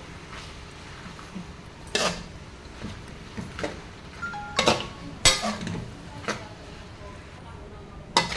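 Metal spatula scraping and knocking against a wok while stir-frying pork and water spinach, in irregular strokes roughly once a second.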